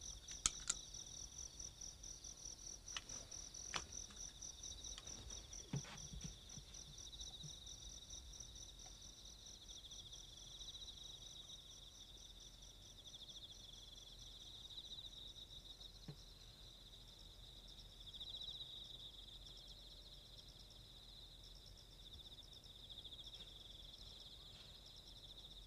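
Crickets trilling steadily, a faint continuous chorus at two high pitches. A few faint clicks come in the first six seconds.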